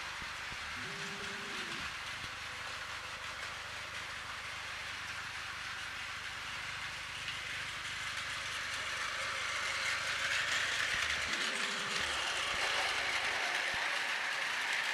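Battery-powered Plarail 800 Series Shinkansen toy train running on plastic track: a steady whirr of its small motor and gears with rattling wheels, growing louder about ten seconds in as it comes close.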